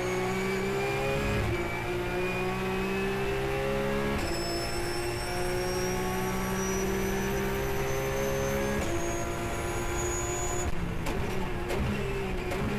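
A Porsche Carrera Cup race car's flat-six engine at full throttle, heard from inside the cockpit. The pitch climbs through each gear, and upshifts about 1.5, 4 and 9 seconds in drop it sharply. From about 11 seconds in, a short run of sharp cracks and blips as the car brakes and shifts down a gear.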